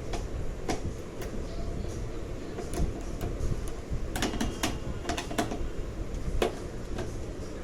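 Irregular sharp clicks and taps, a few in quick succession about halfway through, over a steady low rumble.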